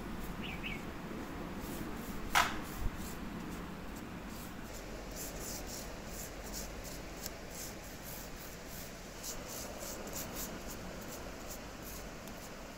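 Bristle paintbrush swishing in quick repeated strokes as a wet finish is brushed onto a turned wooden spade handle. About two seconds in there is a sharp tap, followed by a smaller one.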